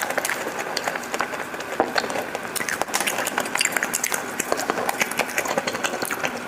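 Close-up eating sounds: chewing with rapid, irregular crunches and wet smacking clicks over a steady background hiss.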